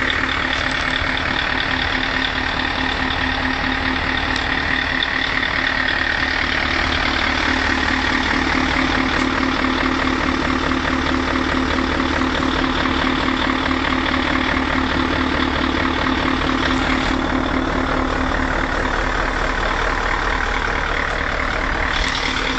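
V8 engine running steadily at an even speed, with no revs.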